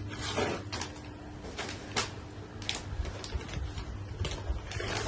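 Paper gift bag and gift wrapping rustling and crinkling as a present is pulled out and handled, in short scattered crackles over a low steady hum.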